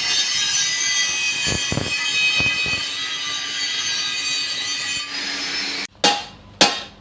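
Steel being ground, a steady hiss with high metallic squealing, which then cuts off abruptly. Two hammer blows on metal follow near the end, about half a second apart.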